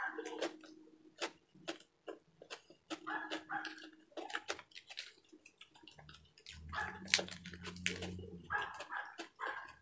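Close-miked eating sounds: wet chewing, lip smacks and crisp crunches of lettuce as mouthfuls of pork and chicken adobo wrapped in lettuce leaves are eaten by hand. A low drawn-out hum lasts about two seconds past the middle.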